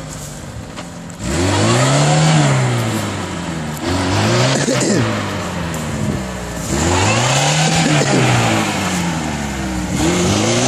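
Lada Niva's engine revving up and falling back in four surges a few seconds apart, as the car struggles to pull through deep mud ruts.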